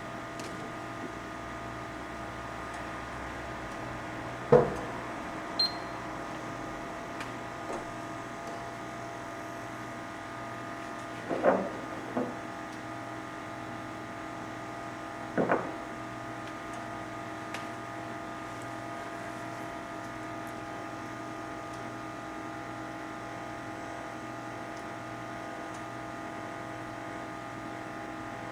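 A steady machine hum with several held tones, broken by a few sharp knocks or clinks: one about four and a half seconds in, a pair near eleven and twelve seconds, and one near fifteen seconds.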